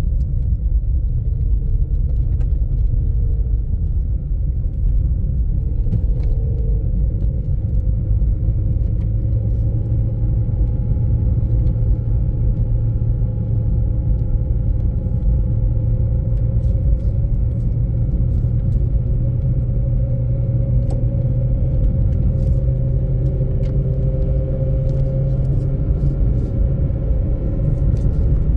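Steady low rumble of a car driving on an unpaved dirt road, heard from inside the cabin: engine hum and tyre noise, with scattered sharp clicks.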